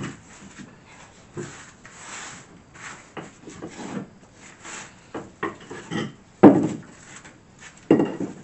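Old cement tiles being handled on a hard floor: irregular scrapes as they slide against the floor and each other, and clacks as they are picked from a stack and set down, with the loudest knocks about six and a half seconds in and near the end.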